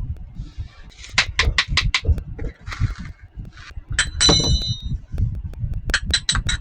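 Small toy kitchen pieces being handled and knocked together. A quick run of clicks and taps comes about a second in, one short ringing ding comes just after four seconds, and another run of clicks comes near the end, over low handling rumble.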